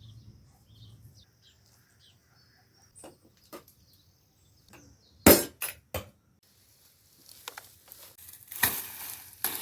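A series of sharp clinks and knocks, the loudest about five seconds in, then a stretch of hissing noise with two more knocks near the end. Small birds chirp faintly in the first few seconds.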